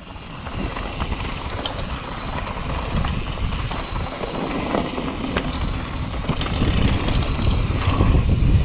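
Canfield mountain bike rolling down a dirt and gravel singletrack: tyres crunching over loose ground with small rattles and clicks from the bike, and wind rumbling on the microphone. The noise grows louder as speed builds.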